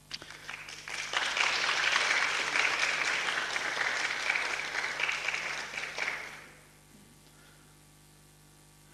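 Audience applauding in a hall: a few scattered claps swell into full applause about a second in, which holds for some five seconds and then dies away.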